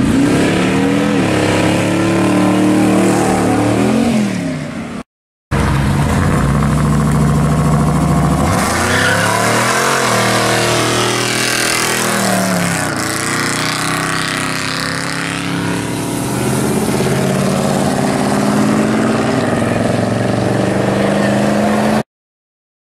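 Classic cars' engines revving and accelerating as they pull away. After a brief cut to silence about five seconds in, an engine revs hard while the rear tyres spin and squeal in a burnout through the middle, then it runs on as a car drives off.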